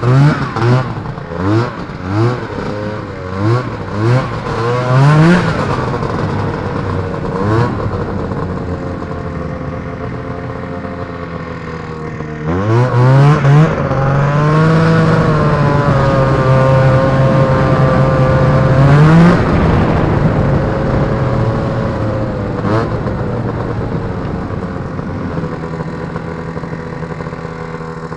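Polaris Indy Trail snowmobile's Rotax 503 two-stroke twin engine revving in a series of short throttle blips during the first few seconds, then running at lower revs. About twelve seconds in it climbs to a steady high rev under acceleration, holds there for several seconds, then eases off to a lower steady cruise.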